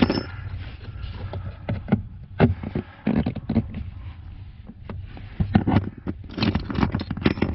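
Hard plastic HVAC heater-box housing scraping, clicking and knocking as the cut-out section is pushed and pried back into place around the new blend air door. The knocks are irregular, over a steady low hum.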